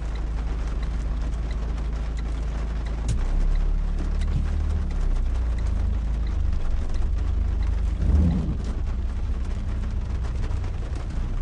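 Renault car's engine running, heard from inside the cabin as a steady low hum that rises about three seconds in as the car pulls away. There is a short louder sound about eight seconds in.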